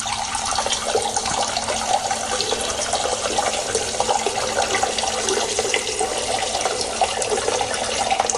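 Urination sound effect: a steady stream of liquid splashing into water, continuous and unbroken, with a faint steady hum underneath.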